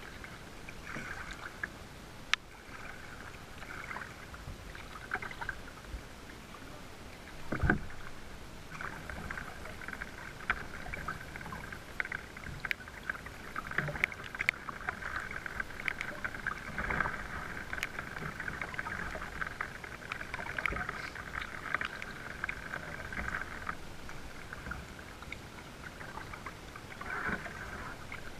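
Water lapping and trickling against a kayak's hull as it is paddled, with many small splashes and drips. A single dull thump about eight seconds in.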